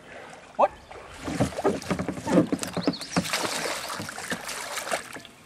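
Kayak paddle splashing and churning the water beside a plastic kayak, in a run of irregular strokes and sloshes, busiest from about a second in to about four seconds in.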